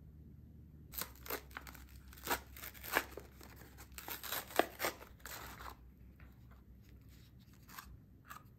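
Plastic wrapper of a Caprico cone snack torn open and crinkled by hand: a run of sharp crackles and rips from about a second in until nearly six seconds, then a few softer rustles near the end.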